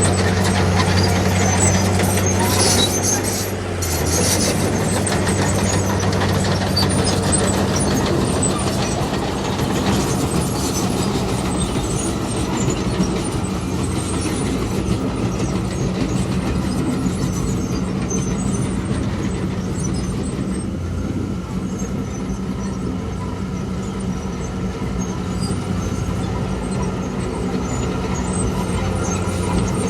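Heavy diesel earthmoving machinery running steadily, a low engine hum under rattling and clatter. About two to four seconds in there is a burst of sharper clatter, and the engine note drops at about four seconds.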